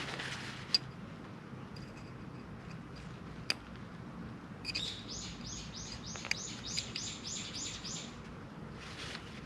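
A bird calling a quick run of about a dozen high, sharp repeated chirps, about three or four a second, in the second half. A few single light clicks sound before it.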